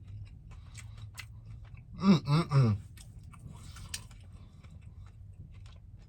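A person chewing a mouthful of chicken sandwich, with soft crunches and wet mouth clicks. About two seconds in comes a brief voiced "mm-mm-mm" of enjoyment, the loudest sound.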